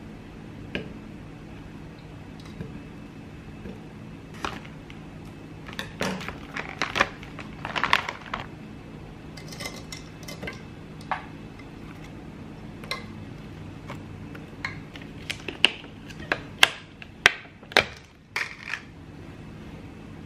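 Food being handled into a plastic blender cup: a plastic bag crackling and frozen berries clattering into the cup, with scattered sharp clicks and knocks from handling containers. A steady low hum runs underneath.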